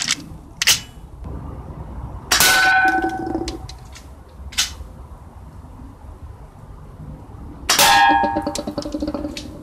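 BB pistol shots at empty aluminium drink cans: two loud metallic clangs that ring on for about a second as BBs strike the cans, about two seconds in and near the end, with shorter sharp clicks between them.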